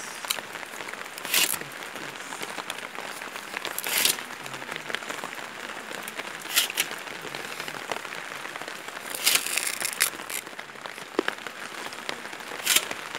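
Hand-lever sugarcane bud cutter chopping bud chips from a cane stalk: six short, sharp crunches of the blade through the cane, most about two and a half seconds apart, over a steady hiss.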